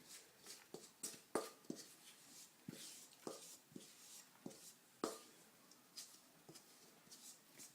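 Faint, scattered clicks and light knocks, about a dozen at irregular intervals, from kitchen items being handled while the baking pan is readied.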